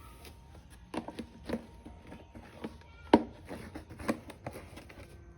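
Scattered light knocks and clicks of hands working in the mower's engine bay, the loudest about three seconds in.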